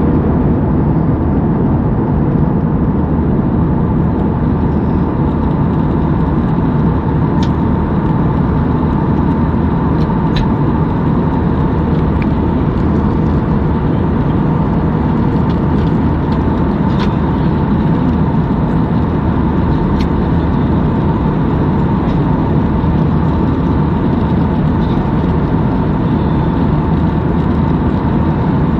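Jet airliner cabin noise: the steady roar of the engines and airflow heard inside the cabin from a window seat, with a faint steady hum and a few faint ticks.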